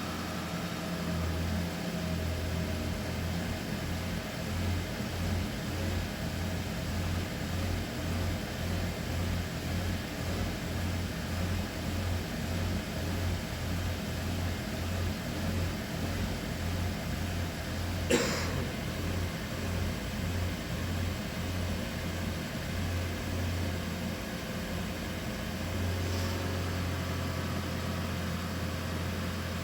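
Toyota Prius 30's 1.8-litre petrol engine running with a regular, rhythmic knock as its EGR valve is forced open by a diagnostic active test: the knocking is caused by the changed EGR position. About 26 seconds in the rhythm stops and the engine runs steadily; a single sharp click sounds about 18 seconds in.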